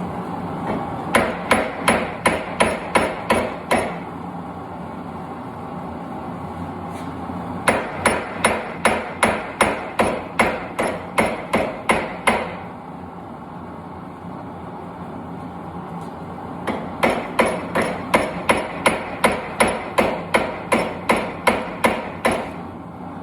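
Hand hammer striking hot steel on an anvil in three runs of quick, even blows, about three a second, each blow with a short bright ring.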